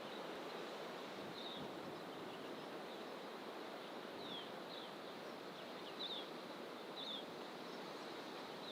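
A steady rush of distant ocean surf under thick bush, with a few short, high bird chirps that slide downward, scattered through it about five times.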